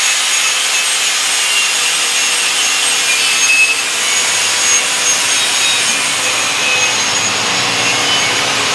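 Handheld grinder working the steel pipe's 6010 root-pass weld, a steady grinding noise with faint steady tones, cleaning up the root before the hot pass.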